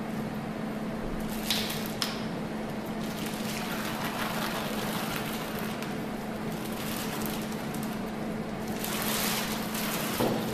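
Clear plastic camera drape crinkling and rustling as it is handled and pulled over an endoscopic camera head and along its cable, loudest near the end, over a steady low hum.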